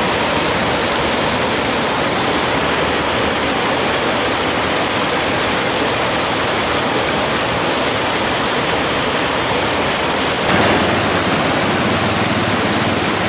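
Rapids of a shallow rocky river, water rushing over and around boulders in a loud, steady rush, a little louder and brighter about ten seconds in.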